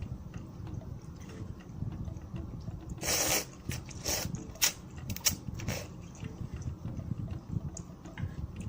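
Close-up eating sounds of a person chewing malatang noodles, with a short slurp about three seconds in and several quick wet mouth smacks after it.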